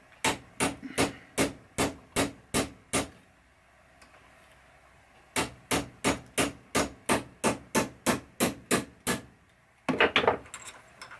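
Small hammer tapping a pin punch, driving a roll pin into a Gottlieb flipper link on an anvil: about eight steady taps at roughly three a second, a pause, then about a dozen more at the same pace, and a short clatter near the end.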